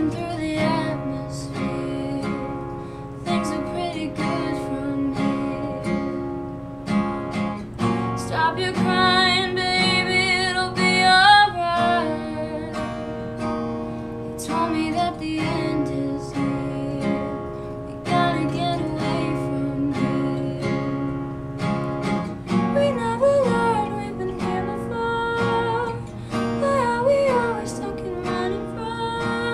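A solo female voice singing over a strummed acoustic guitar. She holds long notes with vibrato, climbing to her highest and loudest passage about ten seconds in.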